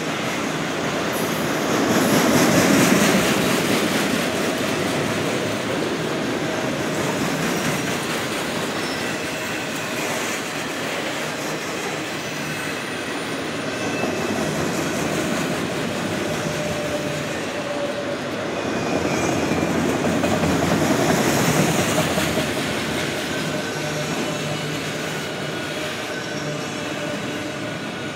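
Freight train of multilevel autorack cars rolling past: steady rumble and clatter of steel wheels on rail, with faint thin wheel squeal. It swells louder about three seconds in and again about two-thirds of the way through.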